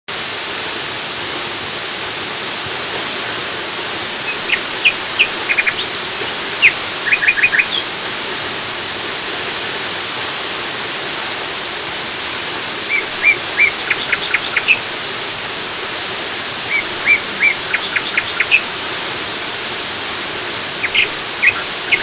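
Steady rush of falling water from a tall waterfall, with a bird calling over it in four bouts of quick, short chirps a few seconds apart.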